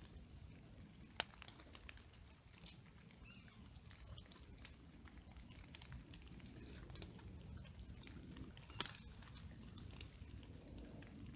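Scattered raindrops and drips ticking sharply at irregular intervals over a faint, steady low rumble.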